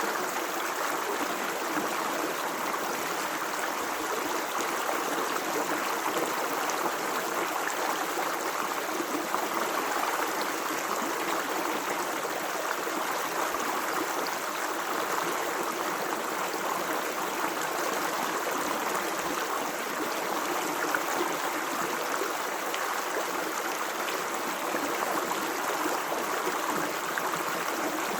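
Running water of a stream flowing steadily: an even, unbroken rushing and babbling.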